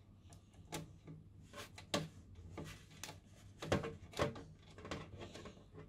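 Motherboard mounting screws being fitted and tightened into the case standoffs: an irregular run of small clicks and taps, one or two a second, a few of them sharper and louder.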